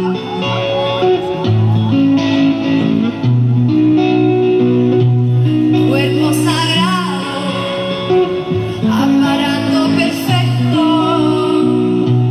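Live band music: guitar over held bass notes that change every second or so, with a singing voice in places.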